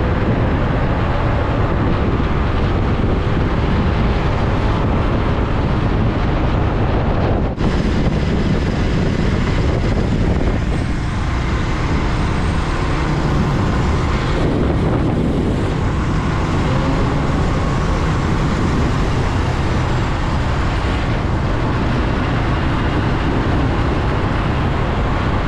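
Steady wind rush on the microphone mixed with motorbike and road traffic noise, heard while riding on a motorbike through city traffic, with a brief break about seven and a half seconds in.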